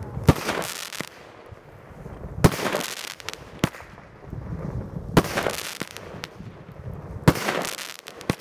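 Consumer fireworks battery firing its shots: sharp bangs, the loudest every two seconds or so, each trailed by about a second of crackling.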